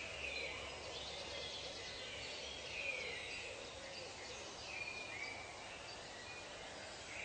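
Wild birds calling and chirping in short repeated phrases over a steady hiss of natural ambience.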